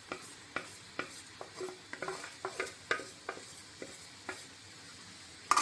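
Spatula scraping and tapping against a steel bowl while crumbled jaggery is pushed out into a pan: a scattered run of sharp clicks, two or three a second, with a louder knock right at the end.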